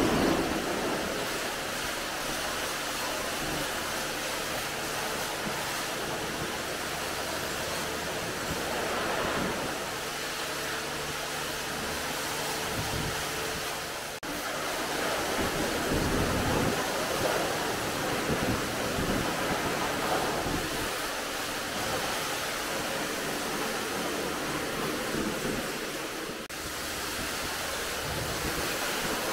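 Steady hiss of water spraying onto a car, as from a pressure washer during the wash, briefly breaking off twice.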